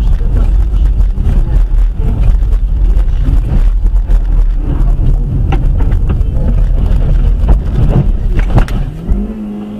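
Heavy, loud low rumble of a car on the road, with several sharp knocks in the second half. Near the end the rumble drops away and a steady hum that rises and then falls takes over.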